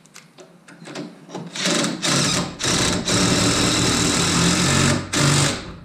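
Cordless impact gun running a rear shock mounting bolt in. After a few faint clicks it fires in short bursts, then runs for about two and a half seconds, and ends with one short final burst.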